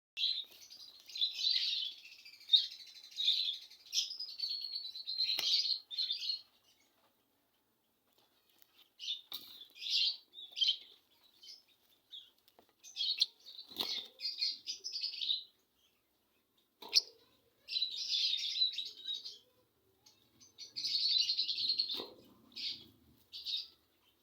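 Lovebird chicks calling in repeated high, scratchy chirping bursts, each lasting up to a couple of seconds, with pauses between groups. A few sharp clicks or knocks are mixed in.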